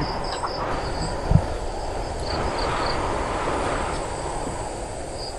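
Crickets chirping over a steady rushing noise that swells and fades in the middle. A single low thump comes about a second in.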